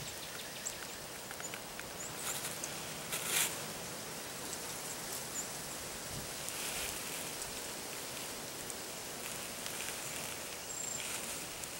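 Outdoor ambience in leafless woods: a steady hiss of air and leaves, with a few faint, short, high chirps and one brief rustle about three seconds in.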